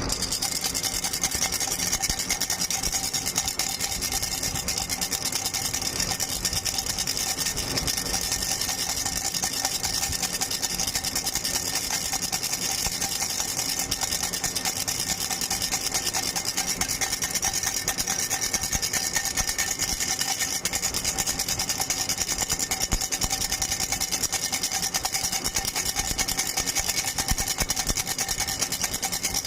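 A rattle shaken rapidly and without pause, its beads or kernels making a dense, even stream of fast clicks.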